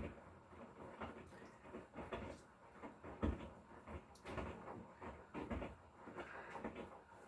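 A thick duvet being handled and pushed into a front-loading washing machine drum: irregular rustling of fabric with soft knocks, the loudest about three seconds in.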